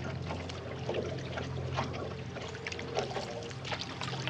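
Wooden canoe paddle stroking through calm lake water: water trickling and dripping off the blade, with small irregular splashes and gurgles.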